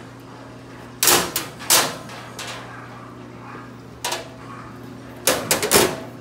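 Steel side tray of a U.S. General mechanic's cart knocking and clanking against the cart's frame as it is handled and fitted into place. Single knocks come about one and two seconds in and again about four seconds in, then a quick run of four or five near the end.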